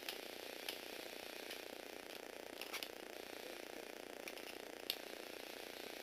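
Small electric motor and plastic gears of a Lego Technic toy car whirring steadily as it drives, with irregular sharp clicks from the gearing.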